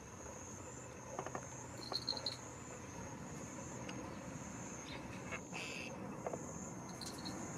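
Insects shrilling in a faint, steady high-pitched chorus, with a few short chirps about two seconds in and near the end, and some light clicks.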